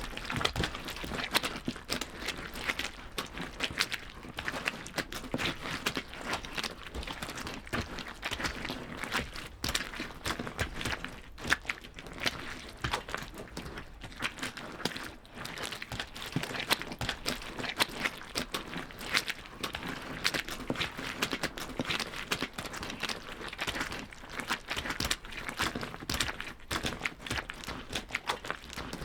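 Footsteps: a dense, steady run of steps with many small clicks and scuffs.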